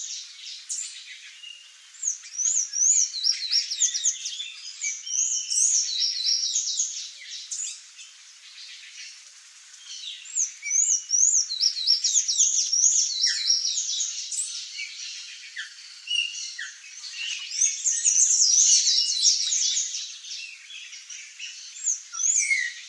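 Several small birds chirping and singing at once, a dense chorus of quick high notes and repeated trills that swells and fades in waves.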